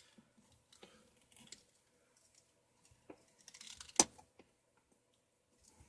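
Faint scattered clicks and light rattling from plumbing tools and PVC pipe being handled in a cramped space under a sink. One sharp click comes about four seconds in.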